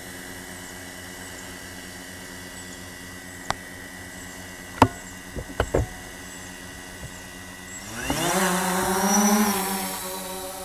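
DJI Phantom 3 quadcopter's motors and propellers spinning at idle with a steady hum, then rising in pitch and getting louder about eight seconds in as it lifts off and climbs. A few sharp clicks sound midway.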